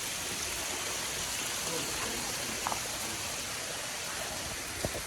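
A steady rushing hiss like running water, with a faint click about halfway through and a sharper one near the end.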